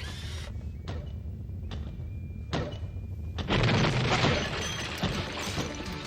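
A loud shattering crash of breaking material. Before it come heavy, evenly spaced thuds, a little under one a second, over a low steady drone.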